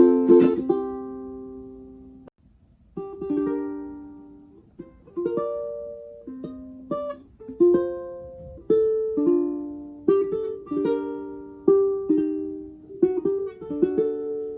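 Kala solid bamboo tenor ukulele played solo: a strummed chord rings and stops about two seconds in, then after a short pause a melody is picked note by note with occasional two-note chords.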